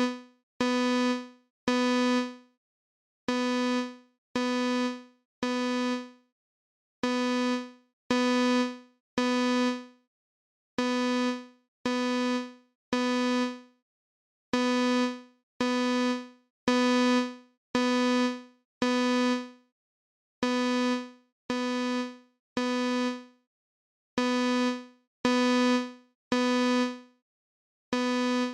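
Synthesized imitation of a Simplex fire alarm horn, played on Google Song Maker. One buzzy note sounds in repeated groups of three short tones, each fading a little, with a pause of about a second and a half between groups: the temporal-three (code 3) evacuation pattern.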